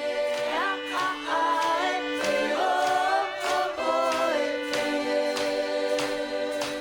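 Background music with singing voices over a steady beat.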